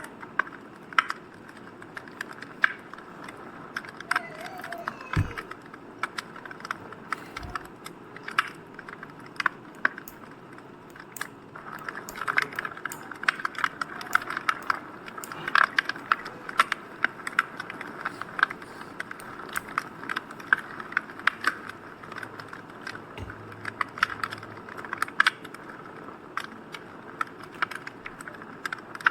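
Crackling fire: irregular sharp pops and snaps over a steady low hiss.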